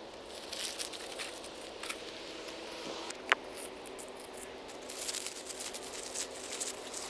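Dry dead aeonium leaves crackling and rustling as gloved hands pull them out from under the rosettes, in irregular bursts that get busier in the second half, with one sharp click about three seconds in.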